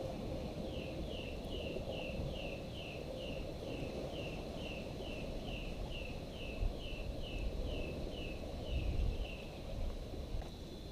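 A bird calling a steady series of short, slightly falling notes, about two a second, which stops near the end, over a steady low rumble of outdoor background noise.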